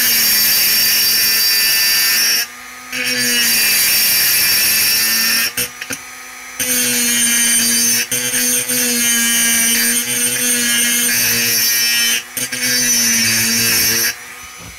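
Pencil grinder running in four bursts with short pauses, a steady whine under a loud high hiss, as the bit grinds aluminium inside a chainsaw cylinder's port while it is being ported.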